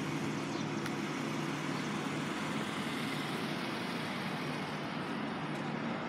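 2020 Hyundai Palisade's 3.8-litre V6 idling steadily, a constant low hum with outdoor background noise.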